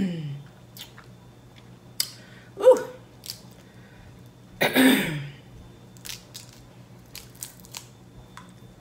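Boiled crab leg shells cracking and snapping as they are broken apart by hand: a string of sharp, scattered cracks. A short vocal 'ooh' comes about a third in, and a longer vocal sound about halfway.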